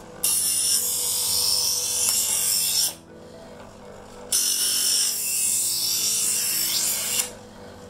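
Chef'sChoice 317 Sportsman Xtreme electric knife sharpener running with a steady motor hum while a steel kitchen knife is drawn through its first-stage diamond-abrasive slot. There are two loud grinding, hissing passes of nearly three seconds each, one at the start and one about four seconds in.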